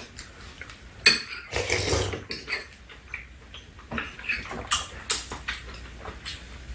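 Spoons and chopsticks clicking and scraping against bowls during a meal, a scatter of light irregular clinks, with a louder knock about a second in.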